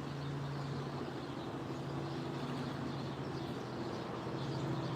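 A steady, low engine hum from a motor running at a constant pitch, with faint bird chirps above it.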